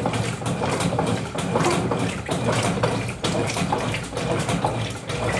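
Brastemp Clean 7 kg (BWC07) top-loading washing machine in its rinse cycle: the motor running with a low hum and water churning in the tub.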